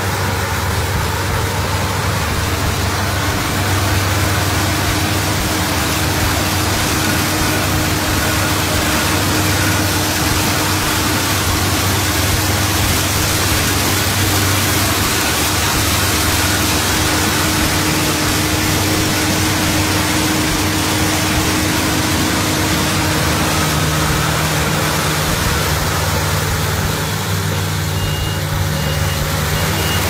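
Yanmar YH590 combine harvester working through rice, its diesel engine and threshing machinery giving a steady, loud drone with a low hum underneath. A few short high beeps sound near the end.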